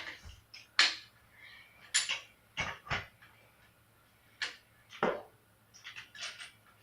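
Metal tools and BMX parts clinking and knocking during bike assembly: about a dozen sharp, separate hits, the loudest about a second in and at two seconds.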